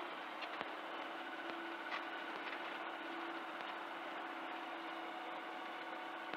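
C42 microlight's engine running steadily at low taxi power, a constant hum with a few faint ticks.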